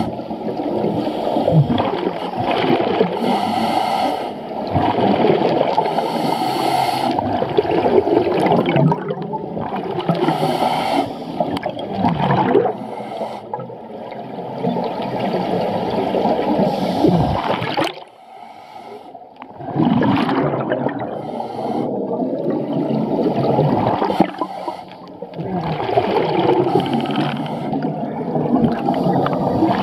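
Scuba diver's regulator breathing underwater: long gurgling rushes of exhaled bubbles with brief lulls between breaths, and one clear pause about eighteen seconds in.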